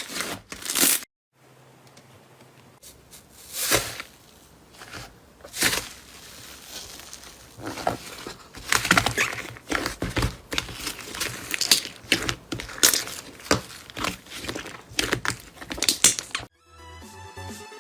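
Slime being squeezed and pressed by hand, making irregular sticky crackles and popping clicks over faint background music. Near the end it cuts to electronic dance music.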